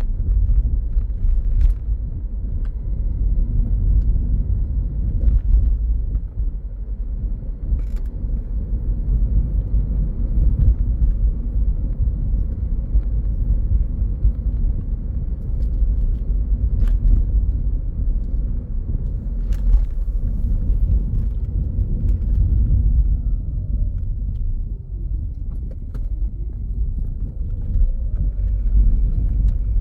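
Steady low rumble throughout, with a few faint clicks and a faint tone that falls and rises again near the end.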